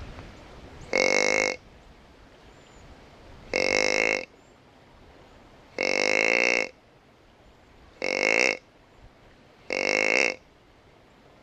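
Whitetail buck grunts: five short grunts of the same shape, each under a second long, one about every two seconds.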